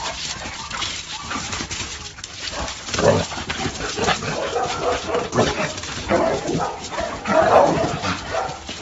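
A dog vocalizing in a string of short barks and whines, the loudest calls about three seconds in and again near the end.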